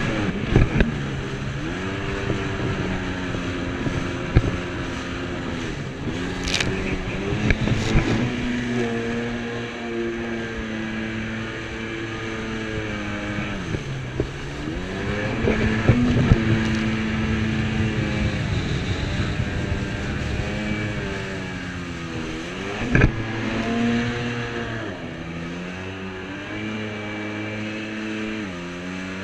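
Jet ski engine running under way, its pitch dropping sharply as the throttle is eased and climbing back as it opens up again, several times over. A few sharp thumps break in over the engine.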